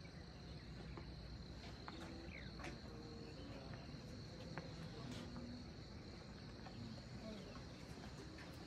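Insects, crickets by their sound, trilling in one steady, high, unbroken tone, faint, with scattered soft ticks over a low background hum.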